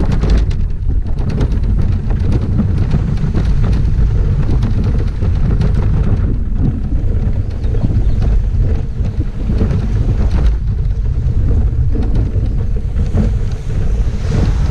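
Wind buffeting the microphone at sea: a loud, steady low rumble with crackling gusts.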